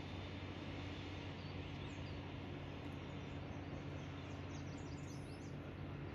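Outdoor lakeside ambience: a steady low hum, with a few faint high bird chirps in the middle.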